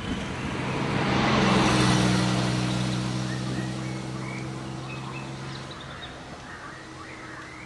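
A small van drives past close by and away down the road, its engine tone and tyre noise loudest about two seconds in, then fading. Birds chirp in the second half.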